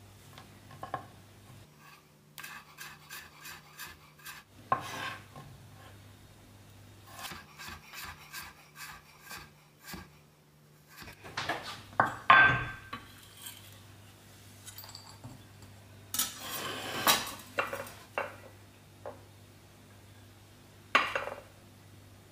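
A kitchen knife slicing a carrot into thin strips on a bamboo cutting board: two runs of quick, even cuts, about four or five a second. About twelve seconds in, a ceramic bowl knocks down onto the board, followed by clatter and rustling as the cut carrot and leek strips go into it.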